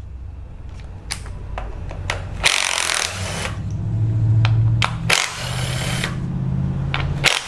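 Cordless ratchet with a 10 mm socket spinning out the ignition coil bolts on an engine's valve cover: its electric motor runs in three stretches, pausing briefly about two and a half and five seconds in, with short harsher rattles near those pauses.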